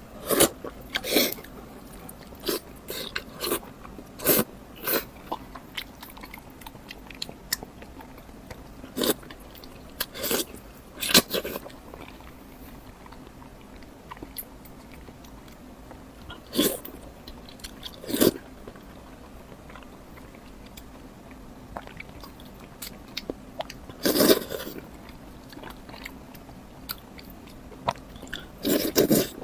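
Close-up eating sounds: bites and chewing with sharp crunches, coming in scattered clusters with quieter gaps between.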